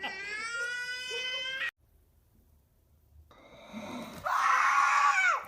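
A high, drawn-out squeal for under two seconds, then a dead gap, then a loud scream that drops in pitch near the end.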